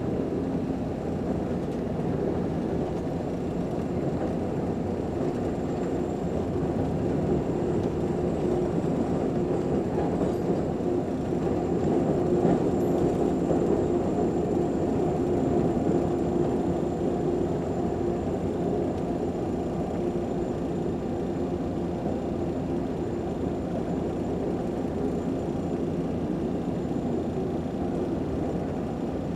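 Amtrak passenger train rolling on the rails, heard from aboard: a steady low rumble with a faint steady hum and a thin high whine.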